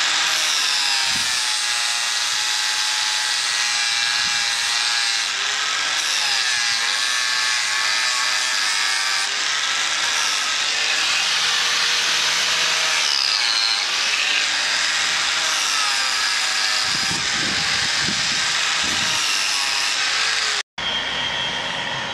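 Electric angle grinder grinding the edge of a 5 mm steel plate, first with a thin disc and then with a flap disc. It makes a continuous harsh grinding noise over a motor whine that dips and recovers in pitch as the disc is pressed into the steel. Near the end it cuts off abruptly and gives way to a quieter steady noise.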